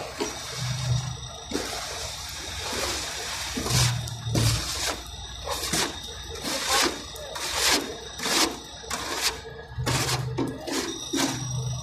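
Hot asphalt being scraped out of a heated container's steel discharge chute with a shovel: a run of rough scraping strokes about every half second, over the steady hum of the machine. A low drone swells now and then.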